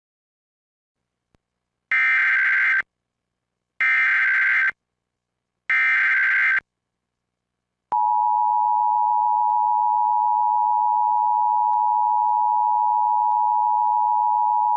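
Emergency Alert System tones: three bursts of SAME header data, each about a second long with short gaps between them. About eight seconds in comes the steady two-tone EAS attention signal, which holds unbroken. Together they mark the start of an emergency alert broadcast.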